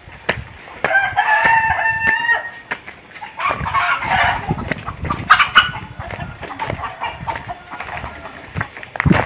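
A rooster crowing, one long call about a second in, followed by more chicken calls and clucking, with short knocks scattered throughout.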